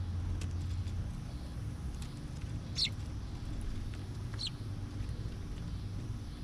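Two short, high bird chirps about a second and a half apart, each sweeping downward, over a steady low background rumble.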